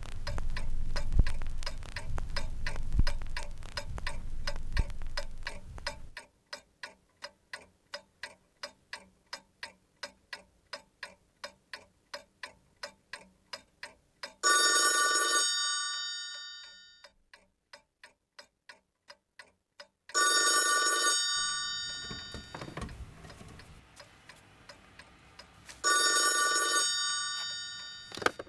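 Mechanical alarm clock ticking evenly, about three ticks a second, under a low pulsing sound for the first six seconds. About halfway through, an old desk telephone's bell rings three times, each ring fading out, about six seconds apart.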